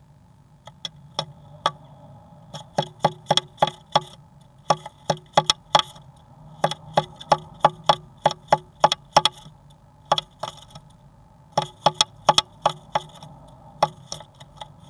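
Great tit pecking at the wooden inside of a nest box: sharp wooden taps in runs of several, about three a second, with short pauses between runs.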